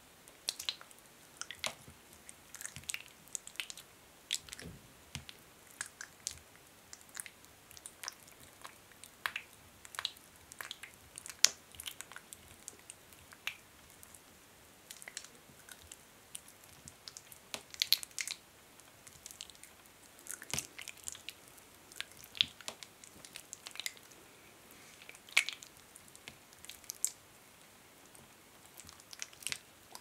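Hands rubbing thick hand lotion together: irregular sticky, wet clicks and squelching crackles, with a few brief lulls.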